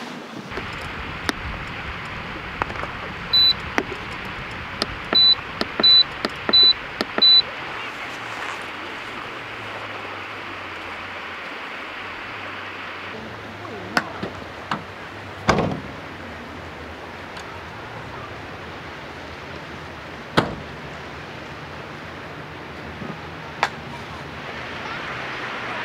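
Five short high electronic beeps, one and then four in quick succession, over a steady background hiss, followed later by a few sharp knocks.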